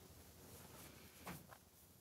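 Near silence: room tone, with one faint short sound a little past a second in.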